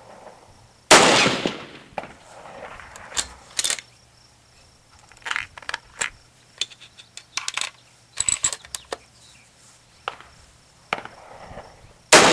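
Two rifle shots from a Tikka T3 bolt-action rifle chambered in a short magnum, each a sharp crack with a trailing echo, about eleven seconds apart. Between them come the clicks and clacks of the bolt being opened, a round fed in by hand and the bolt closed.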